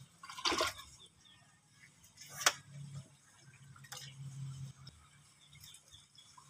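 A few isolated sharp clicks, the loudest about two and a half seconds in, over a faint steady low hum.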